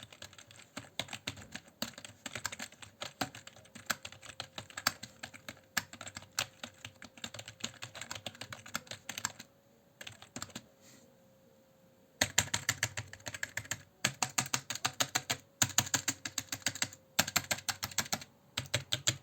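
Typing on a cheap Tracer computer keyboard: the keys click in an irregular patter, stop for about two seconds midway, then resume in faster, denser runs.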